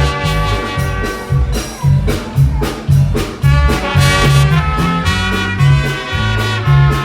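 Upbeat music with a bouncing bass line and horns.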